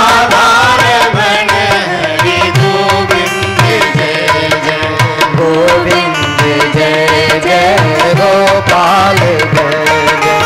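Devotional kirtan music: hand drums keeping a steady beat under a sustained melodic instrument playing the tune between the sung lines.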